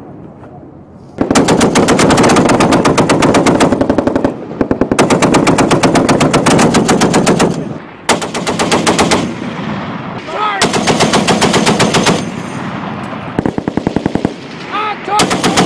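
M2 .50-calibre heavy machine gun firing about six long bursts of rapid, evenly paced shots, the longest lasting around three seconds, with short pauses between them.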